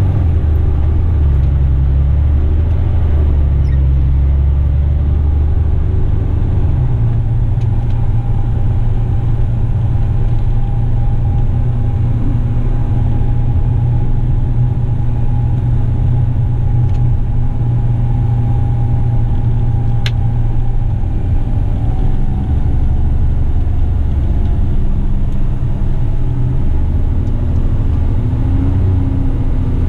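Western Star heavy truck's diesel engine running in the cab as the truck drives along. Its low drone shifts in pitch a couple of times.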